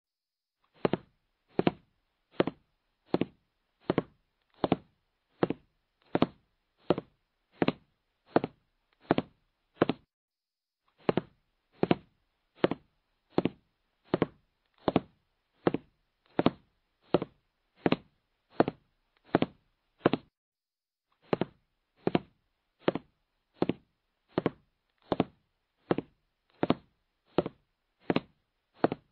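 Clock-ticking countdown sound effect, about four ticks every three seconds, pausing briefly twice, about every ten seconds, while time runs out to answer a quiz question.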